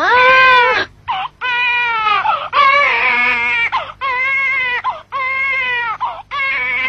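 Newborn baby crying: a string of about six loud, high-pitched wails, each about a second long, with a quick breath between them.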